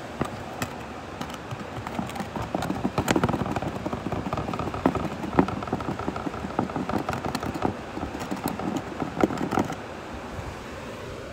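Water sloshing and splashing in a plastic gold pan as it is swirled and tilted, with irregular small splashes and taps that stop about a second before the end: the final washing of gold concentrate out of black sand. Underneath is the steady rush of a river.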